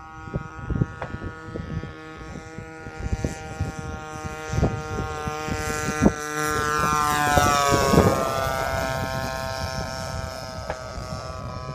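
Model airplane's DLE-20RA single-cylinder two-stroke gasoline engine running steadily in flight on a fly-by. It grows louder toward a pass about eight seconds in, drops in pitch as it goes by, then fades. Low thumps of wind buffet the microphone throughout.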